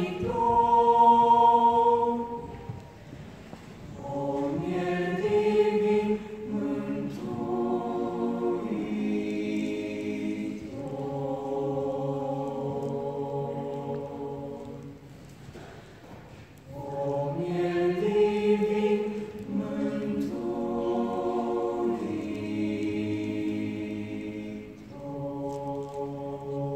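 Mixed choir of men's and women's voices singing unaccompanied, sustained chords moving in slow phrases, with short pauses between phrases about three seconds in and a little past the middle.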